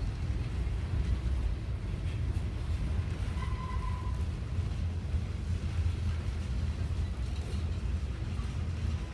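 Freight train's covered hoppers and tank cars rolling past, a steady low rumble of wheels on rail. A brief high tone sounds about three and a half seconds in.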